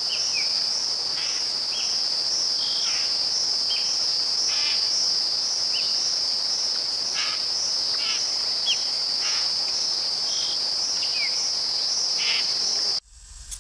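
Steady high-pitched insect chorus, cricket-like trilling, with scattered short high chirps, some falling in pitch. It cuts off suddenly near the end.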